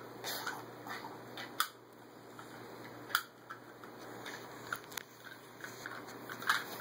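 Scattered faint clicks and taps of small plastic action figures being handled and turned in the hands, over quiet room noise.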